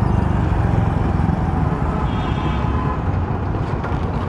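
Hero Splendor motorcycle's small single-cylinder four-stroke engine running steadily while riding, heard with road and wind noise and traffic around it.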